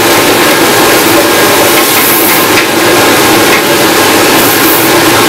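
Roasted coffee beans pouring from the BC-8 roaster's cooling-tray chute into a plastic bucket, a steady rattling rush over the steady noise of the roaster's running fan.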